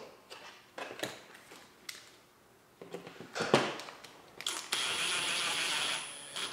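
Small cordless electric screwdriver running steadily for about a second and a half near the end, driving a screw into a nylon gel blaster gearbox shell. Before it come a few light clicks and a sharp knock about three and a half seconds in.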